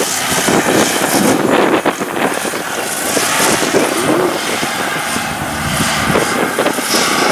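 Engine of a motorized flat-bottomed rice-field boat running steadily as it moves across the wet field, with a rough, rapid clatter.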